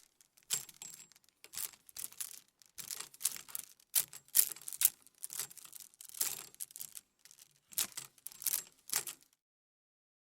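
Plastic clothes hangers clattering and clicking against each other in a series of short, irregular bursts of rattling knocks, ending about nine seconds in.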